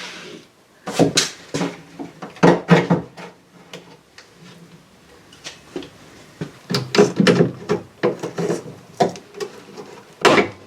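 Irregular knocks and clatter of tools and parts being handled and set down, in short clusters with quiet gaps between.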